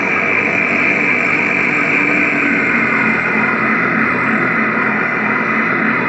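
A sustained wall of electronic noise from guitar effects pedals played through a guitar amp: a dense, unbroken drone with steady tones buried in the hiss, holding one level throughout.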